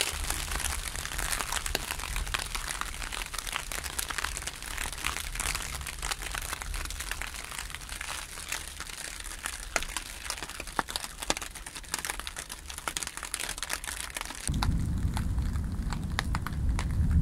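Rain pattering on a clear plastic sheet stretched over a pit, a dense, irregular run of small drop ticks. Near the end a low rumble of wind on the microphone takes over and the patter grows fainter.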